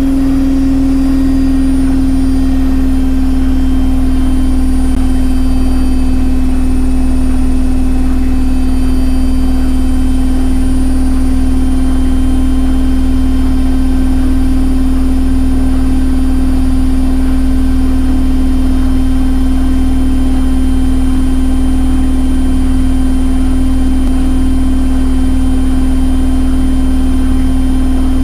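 Washing machine running with its drum turning: a steady motor hum with a constant whine over it and a faint, regular pulsing underneath.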